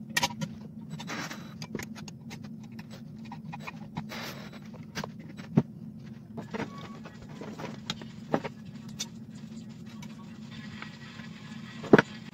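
Scattered metal clinks and knocks as a steel angle bracket is handled and set against a small air compressor, with one sharper knock near the end, over a steady low hum.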